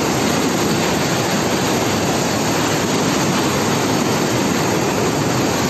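Muddy flash-flood torrent rushing down a village street: a loud, steady rush of fast, churning water.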